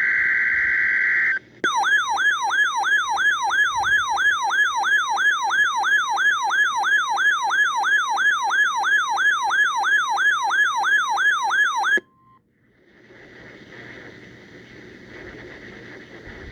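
NOAA Weather Radio weekly test alert. It opens with the end of a SAME data burst, a steady two-tone warble. An electronic alarm then sounds, sweeping down in pitch over and over about three times a second for about ten seconds, and cuts off abruptly. A brief moment of the warning alarm tone follows, then faint radio hiss.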